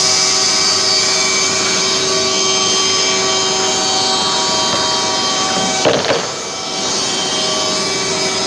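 Weinig woodworking machine running at speed: a steady mechanical hum with several high steady tones from its spinning cutters. About six seconds in there is a brief surge with a sweeping change in pitch, then the sound settles slightly quieter.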